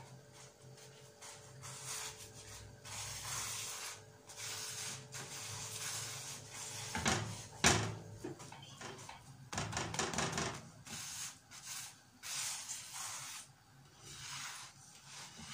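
A slotted nylon spatula rubbing and pressing a chapati around a hot pan: a run of uneven scraping strokes, with a couple of sharper knocks about seven seconds in.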